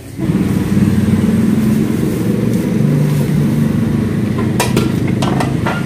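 A motor vehicle engine running steadily close by, loud and low-pitched, coming in abruptly at the start. A few sharp clicks or clatters sound over it about four and a half to five and a half seconds in.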